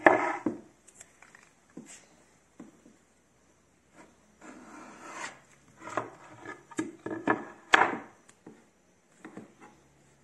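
Hand-held steel blade scraping along white edge banding on an MDF panel edge, trimming off the excess tape in a series of short rasping strokes. The loudest strokes come at the very start and about three-quarters of the way through.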